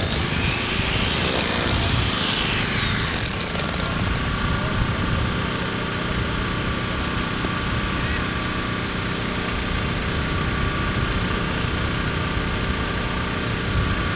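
Steady machine drone: a low rumble with a constant hum over it. A brighter hiss on top fades out about three seconds in.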